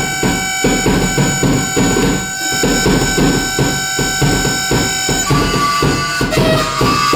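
Live electronic music: a grainy pulsing rhythm of about three to four beats a second under several sustained high tones. About five seconds in, the high tones shift to new pitches.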